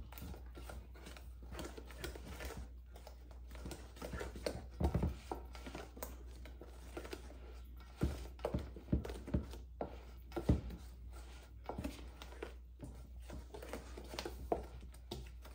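Scattered light knocks, clicks and rustling of food preparation as ingredients and kitchen utensils are handled, with a few louder knocks midway.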